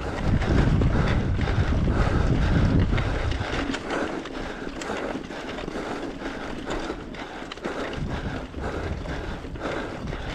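Mountain bike climbing a steep dirt trail, with wind buffeting the microphone and the rider breathing hard in a repeating rhythm. The wind rumble is heaviest for the first few seconds, then eases.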